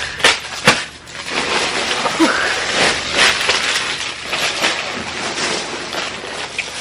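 Plastic packaging bags rustling and crinkling as wrapped clothing items are handled and pulled out of a shipping box, with a couple of sharp taps in the first second.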